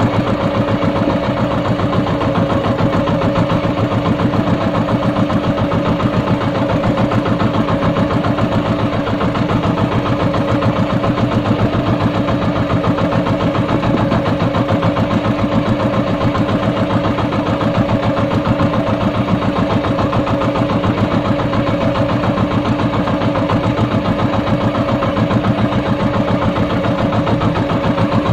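Outrigger boat's engine running steadily under way, a fast even pulsing beat with no change in speed.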